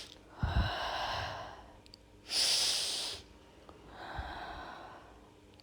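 A person breathing audibly, three slow breaths in and out while relaxing after holding a yoga lunge pose. There is a soft low thump about half a second in and another near four seconds.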